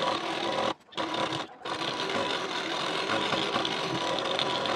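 Black domestic straight-stitch sewing machine running steadily as it stitches a side seam through cotton fabric, with two short breaks before the two-second mark.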